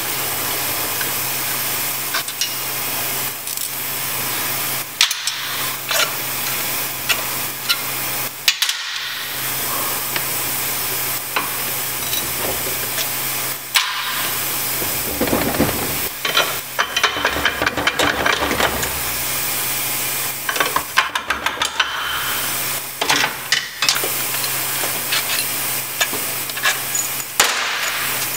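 Hand ratchet clicking in short runs, with scattered metal taps, as valve body bolts are backed out of a 700R4 automatic transmission. The clicks come densest in the second half, over a steady hum and hiss.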